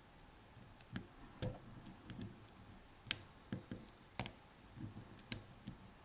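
A lock pick working the pin tumblers inside an old five-pin padlock: a string of light, irregular clicks and taps, the sharpest about three and four seconds in.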